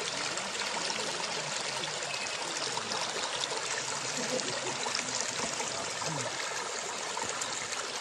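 A small hill-stream cascade splashing steadily as the water falls and runs down over rock slabs.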